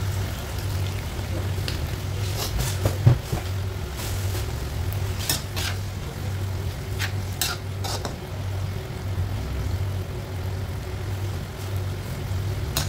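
Spatula scraping and clinking against a nonstick wok as chicken, tomato and onion are stirred in soy sauce, a run of sharp knocks most of them between about two and eight seconds in. Under it runs a steady low hum.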